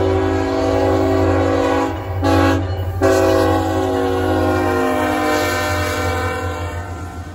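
CSX freight locomotive's multi-note air horn sounding up close: a long blast that ends about two seconds in, a short blast, then a long blast whose pitch drops slightly as the locomotive passes. A steady low diesel rumble runs underneath.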